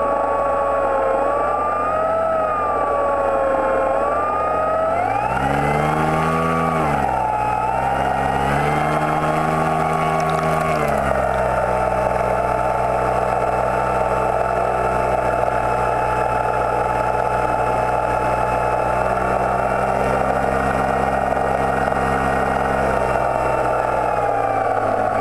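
Motor of a radio-controlled Macchi M.33 model flying boat running close up as it taxis on the water. Its pitch rises and falls twice, about five and eight seconds in, then holds steady and drops slightly near the end.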